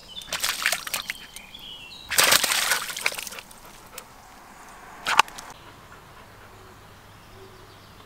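A Bernese mountain dog splashing in a muddy puddle, the water sloshing in two bursts in the first three seconds and once more briefly about five seconds in.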